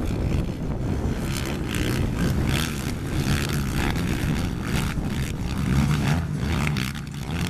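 Engines of several racing ATVs running hard around a dirt motocross track, the throttle surging and easing again and again.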